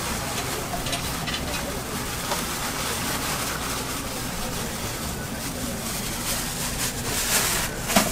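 Steady street-market background din, with the crinkly rustle of a plastic bag as chopped cabbage is tipped into a steel bowl and a short sharp clatter near the end.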